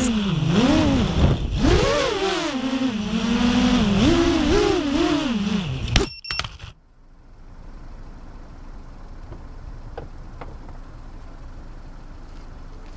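FPV freestyle quadcopter's brushless motors whining, the pitch swinging up and down quickly with the throttle. About six seconds in it cuts off abruptly after a click, leaving only a faint hiss with a few small ticks.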